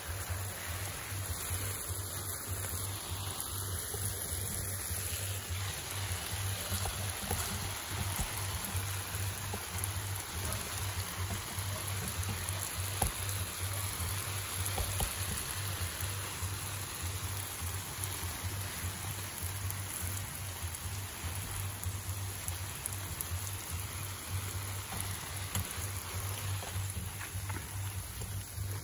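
Water spraying from a garden hose through a hose-end fertilizer sprayer onto flower-bed plants: a steady hiss of spray on the foliage.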